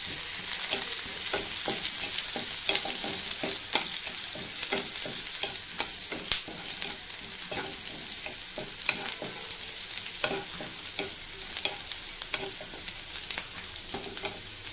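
Chopped onion, green chilli, garlic and ginger sizzling in hot oil in a non-stick pan, being fried until brown, while a wooden spatula stirs and scrapes them with frequent irregular scraping clicks over the steady sizzle.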